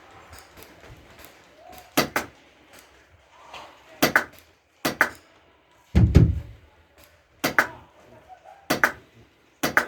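Airsoft gunfire: about seven sharp single cracks, unevenly spaced roughly a second apart, one of them with a heavier thud.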